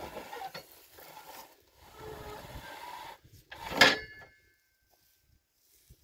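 Handmade wooden box hay baler worked by a long lever: the ram compressing hay with scraping and rubbing of wood and hay, then one loud knock with a short metallic ring about four seconds in.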